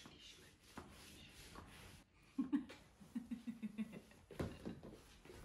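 A woman's quiet laughter, a run of short 'ha' sounds about two seconds in, followed by a single knock near the end.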